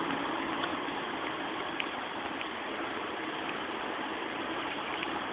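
A steady background hum, like a running motor or fan, with a few faint, scattered clicks, typical of a Rubik's cube being handled and turned.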